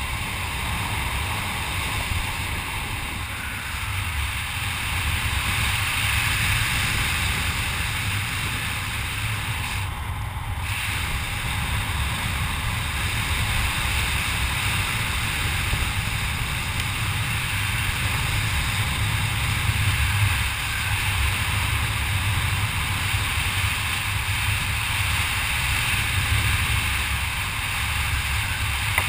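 Wind rushing over a helmet camera's microphone during a parachute descent under an open canopy: a steady low buffeting rumble with a hiss above it.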